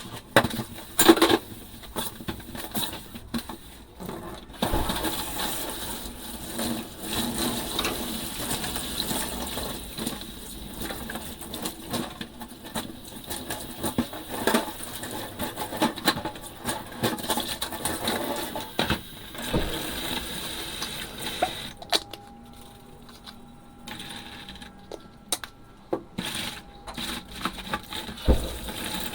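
Dishes being washed by hand in a sink: ceramic and glass clinking and knocking together amid scrubbing and running water, with irregular sharp clinks throughout that thin out and grow quieter near the end.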